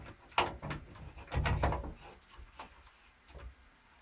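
Metal tools clicking and knocking as an adjustable spanner and split-joint pliers work against each other to undo a stiff nut on a ball float valve. The loudest knock comes about a second and a half in.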